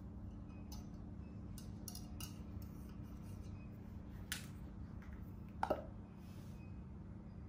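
Small parts of a table lamp being handled: light clicks and taps from the LED light's metal spring clips and the wire cage shade, a sharper click about four seconds in, and a louder knock near six seconds in as the wooden lamp base is set down on the floor. A steady low hum runs underneath.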